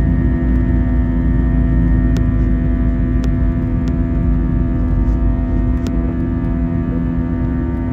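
Airbus A321-200 jet engines at takeoff thrust, heard inside the cabin as the airliner climbs just after liftoff: a loud, steady deep rumble with several steady whining tones above it.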